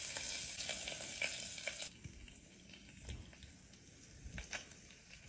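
Steak sizzling in hot fat, which cuts off sharply about two seconds in, leaving only a few faint taps.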